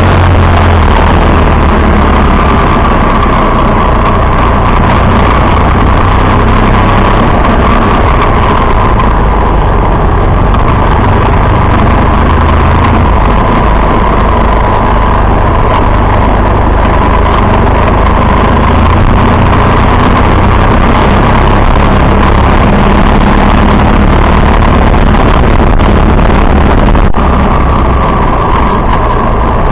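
Motorcycle engine running at steady riding speed under a loud, even rush of wind and road noise on the bike-mounted microphone.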